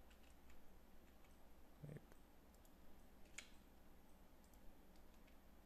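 Near silence: a low steady hum with a few faint, scattered clicks of typing at a computer, the sharpest about three and a half seconds in.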